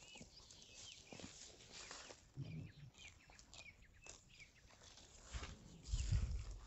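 Footsteps on dry ground with scattered clicks and crackles, short high bird chirps in the first half, and a couple of low thumps, the louder one near the end.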